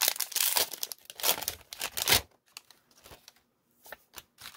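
A 1999 Topps Gold Label card pack's wrapper being torn open and crinkled for about two seconds, followed by a few light clicks and taps.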